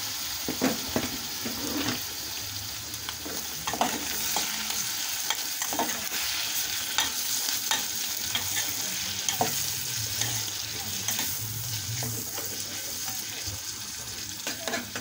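Beef and chopped tomato sizzling in a metal pot while a metal spoon stirs them, scraping and clinking irregularly against the pot over a steady frying hiss.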